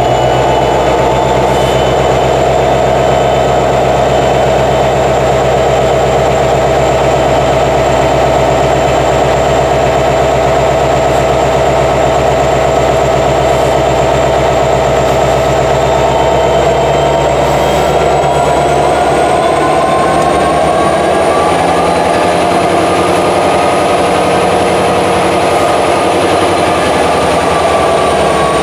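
Locomotive's EMD 16-710 diesel prime mover running loudly with a high whine over it. About two-thirds of the way in, the whine and the engine's tones rise in pitch and the deep rumble thins out, then ease back a little near the end.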